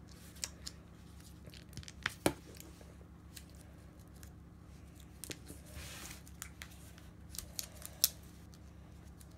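Foil seal being peeled off a Kinder Joy plastic egg by hand: scattered small crackles and clicks of foil and plastic, with a sharper snap about two seconds in and another near the end, and a brief rustle in the middle.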